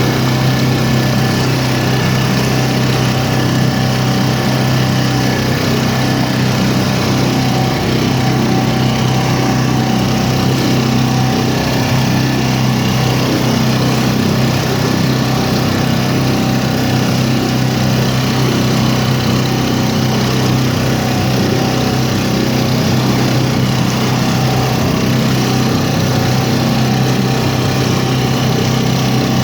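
A motor running at a constant pitch, a steady drone that does not change.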